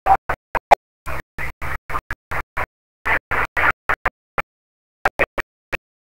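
A stuttering string of short, chopped-up bursts of sound, each cut off sharply into dead silence, like an edited scratch or glitch effect. There is a pause of about half a second midway, then a few more bursts.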